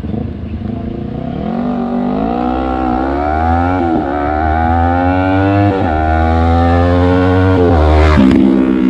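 Yamaha YZF-R3's parallel-twin engine breathing through an M4 slip-on exhaust, revved up from idle. The pitch climbs over a couple of seconds, falls back and climbs again several times, with a quick sharp blip near the end.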